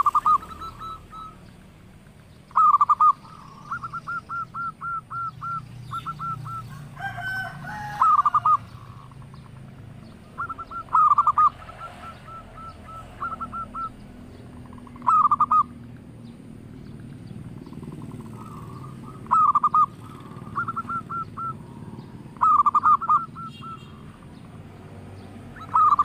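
Zebra dove (perkutut) cooing: loud phrases of rapid staccato coo notes about every three to four seconds, with softer strings of quick notes between them.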